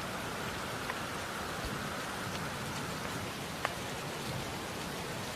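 Steady rain falling, with a few sharper drips standing out.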